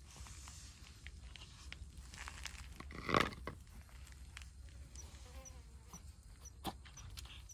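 Stray cats eating from bowls: soft chewing and small clicks, with one short, louder cat vocalization about three seconds in. Faint high chirps repeat about twice a second in the second half.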